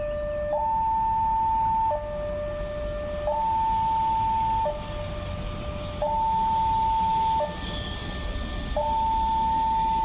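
Railway level-crossing warning alarm sounding an electronic two-tone signal, a higher tone and a lower tone alternating, each held for about a second and a half. It warns that a train is approaching the crossing.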